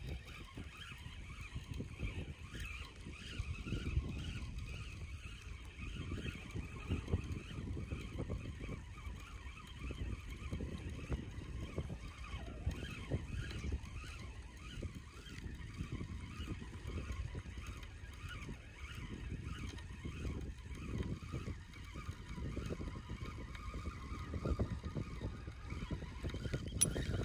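Wind buffeting the microphone outdoors, a steady low rumble with irregular gusts, over a faint wavering higher background sound.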